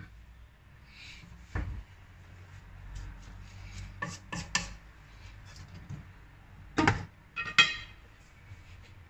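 Wooden spatula stirring vegetables in a wok, knocking against its sides a few times, then two loud clanks near the end as a steel-rimmed glass lid is set on the wok.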